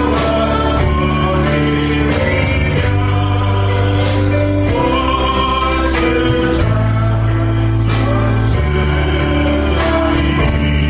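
Christian worship song: singing over long held bass notes and a steady beat.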